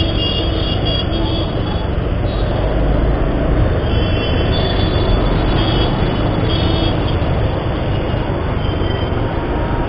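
Steady riding noise from a Bajaj Pulsar 150 motorcycle's single-cylinder engine moving at low speed through city traffic, with a heavy low rumble of wind on the microphone and the sound of surrounding vehicles.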